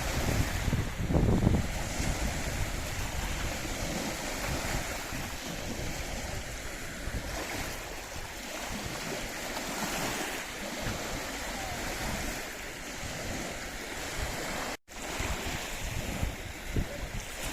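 Waves on the loch washing steadily, with gusts of wind buffeting the microphone. The sound drops out for an instant about three-quarters of the way through.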